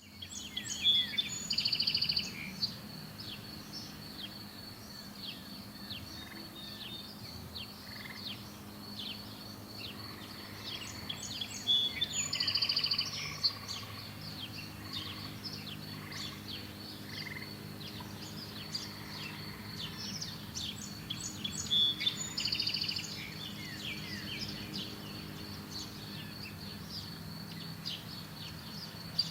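Several wild birds singing and chirping, with one louder song phrase coming back about every ten seconds, over a steady high tone.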